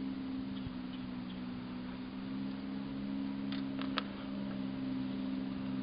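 A steady low hum throughout, with a few light clicks about three and a half to four seconds in, the last the sharpest, as PVC pipes and plastic clips are handled.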